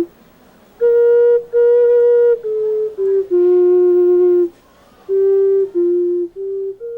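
Clay ocarina playing a slow melody of held notes that step down and back up, with a short pause midway and a last higher note held and fading.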